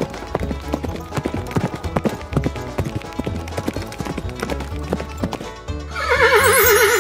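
Horse-hoof clip-clop sound effect, a rapid run of clopping knocks, over background music. About six seconds in it gives way to a loud horse whinny with a shaking, falling pitch.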